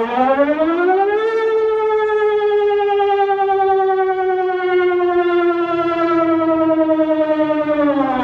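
Civil-defense-style siren winding up in pitch over about a second, then holding a long wail that sinks slowly, and falling away near the end. It plays as the alarm tone of an emergency alert.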